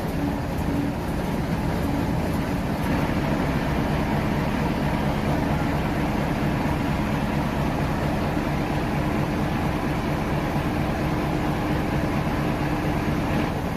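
A crane's diesel engine running steadily with a low drone and an even hum while it lowers an excavator.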